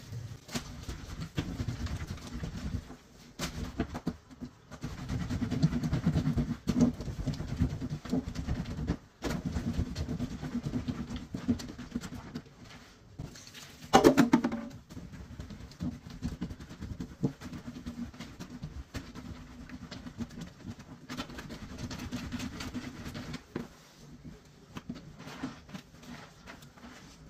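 Wet, soapy laundry scrubbed by hand on a corrugated metal washboard: irregular rubbing and squishing strokes of fabric against the ribs, with dripping suds. About halfway through there is one brief, loud pitched sound.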